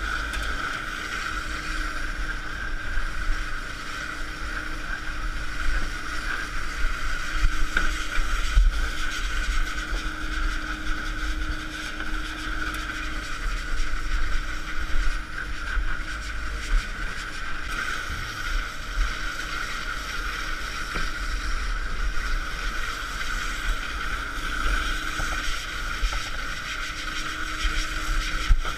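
A working boat's engine running steadily with a constant whine, while wind buffets the microphone in uneven low rumbles.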